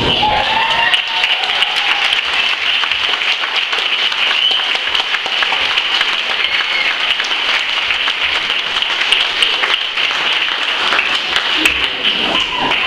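Large audience applauding, a steady dense clapping, with a few voices calling out over it.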